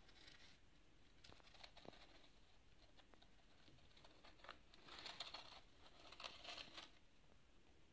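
Faint rustling and crinkling of bedding in a hamster cage, with a few small clicks, and two louder bouts of rustling about five and six seconds in.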